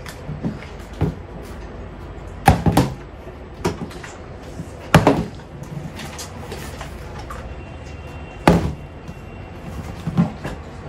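Plastic soda bottle being flipped and landing on a tabletop: a series of sharp knocks, the loudest about two and a half, five and eight and a half seconds in, with lighter taps between.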